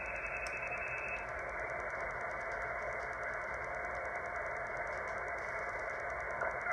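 Web SDR receiver audio tuned to the 26.750 MHz paging channel: steady radio static hiss with a flat top end, as from a receiver's audio passband. The passband edge narrows slightly about a second in, and a brief louder patch comes at the very end.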